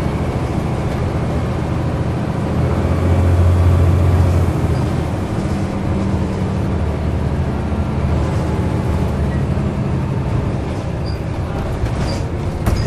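Diesel engine of a single-deck bus heard from inside the passenger saloon while under way, a steady drone that grows louder about three seconds in and eases back. A few sharp clicks or rattles near the end.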